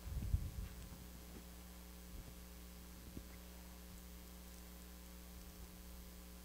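Steady electrical mains hum from the sound system, with a few soft thumps in the first second, faint ticks, and a sharp click near the end.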